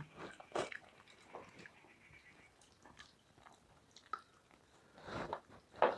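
Chewing and eating noises of people eating rice and fish curry with their hands, with fingers mixing rice on steel plates; short, irregular sounds, louder a little after the start and again near the end.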